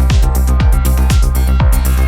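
Midtempo psychill electronic music: a steady kick drum about twice a second under held bass and synth chords, with hi-hat-like ticks above.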